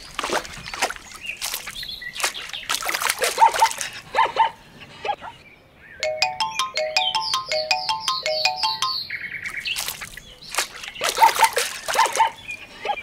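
Water splashing in uneven bursts in a small toy pond, stopping about four seconds in and returning near the end. In between, a fast run of short repeated high chirps, about six a second, lasts roughly three seconds.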